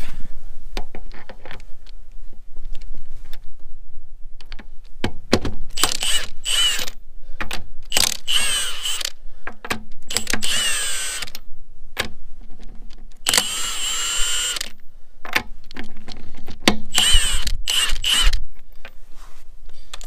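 Power impact wrench spinning off a wheel's lug nuts in five short whining bursts, each about a second long, with small clicks of handling between them.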